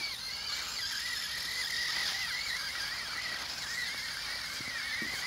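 Electric drive motor of a Spin Master All-Terrain Batmobile RC truck whining steadily, its pitch wavering up and down as the throttle changes, while the wheels slip on a patch of ice.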